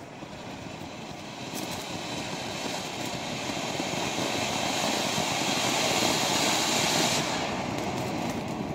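Ground fountain firework (anar) spraying sparks with a steady hiss that grows louder, peaking about six to seven seconds in. The sharpest, highest part of the hiss drops away about seven seconds in, and the fountain dies down near the end.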